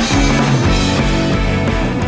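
Background music with a steady beat: a rock-style instrumental track with guitar, beginning to fade out.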